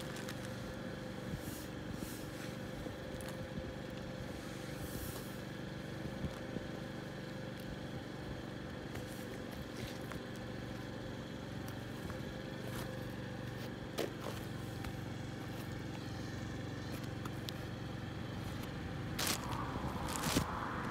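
Steady low background hum with occasional scuffs and clicks of heavy-soled boots on gritty asphalt. Near the end the boots shuffle around a plastic carrier bag, crinkling and scraping it.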